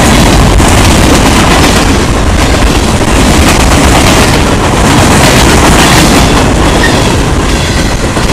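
CSX mixed freight train passing, a loud steady rumble and clatter of the train on the rails.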